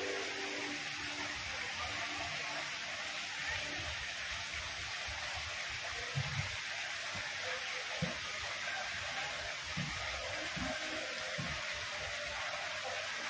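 Steady hiss of small water fountain jets and mist sprayers, with a few soft low thumps partway through.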